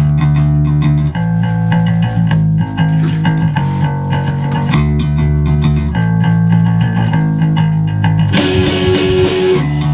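Playback of a recorded rock track, instrumental: bass guitar holding low notes that change every second or so under guitar, with a hissing wash of high noise near the end.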